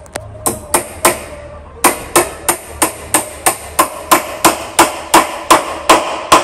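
Hammer driving small nails into a wooden tabletop: a few taps, then after a short pause a steady run of strikes about three a second, each with a short ring.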